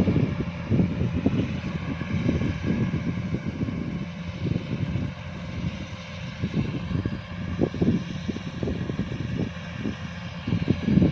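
Kubota DC-105X combine harvester running while harvesting rice: a steady diesel engine and machinery drone with uneven low surges.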